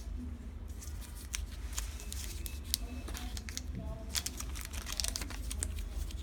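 Packaging being handled during an unboxing: irregular small clicks and rustles of cardboard and plastic wrapping, over a steady low hum.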